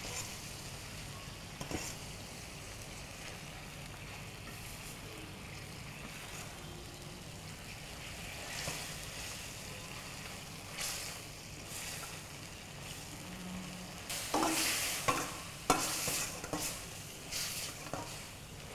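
Chicken pieces in thick masala sizzling in a hot pan while a spatula stirs and turns them, the masala cooking down. Over the last few seconds the spatula scrapes and knocks louder against the pan several times.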